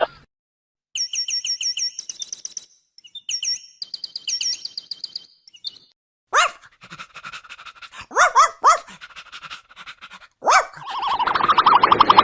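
A run of animal calls. First come fast trains of high, thin chirps. Then a few short yelping barks that drop in pitch, and near the end a rapid pulsing call that grows louder.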